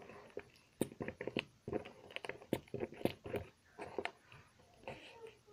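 Irregular small clicks and taps of hands working homemade slime on a table, as it is mixed and sprayed with water.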